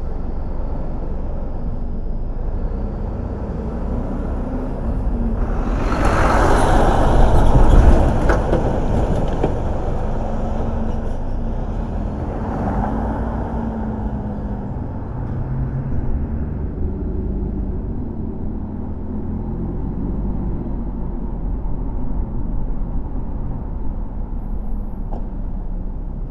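Road traffic heard during a drive through city streets: a steady low rumble of engines and tyres. About six to eight seconds in, a passing vehicle swells loudly and fades, and a smaller swell follows a few seconds later.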